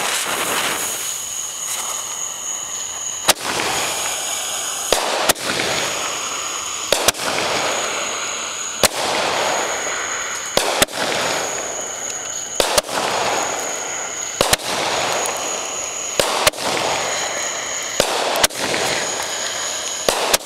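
Multi-shot consumer firework going off: sharp pops about every two seconds, often in close pairs, over a continuous crackling hiss. A steady high whistle sounds between the shots.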